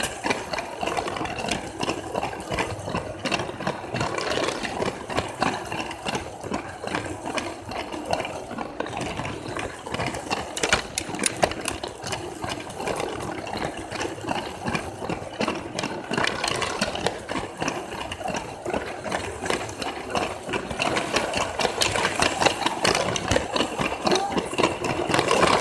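Motorized Lego train running along its plastic track: a small electric motor and gears running steadily with a fast, continuous rattle of clicks from the wheels and track.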